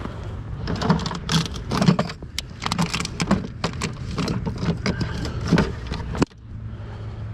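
Irregular crunching, scraping and sharp knocks on ice over a steady low hum, stopping abruptly about six seconds in.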